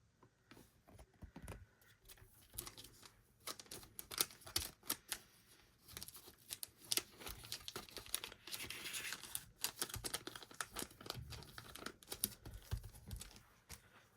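Packaging being crinkled and torn open by hand: a run of small rustles and clicks, with a denser stretch of tearing about eight to nine seconds in.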